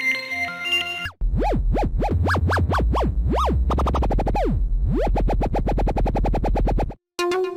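Roland System-100 software synthesizer playing demo patches: a short stepping melody, then, a second in, a deep bass with repeated pitch sweeps rising and falling about twice a second, turning into a fast stream of repeating pulses. It cuts off abruptly near the end and another patch starts.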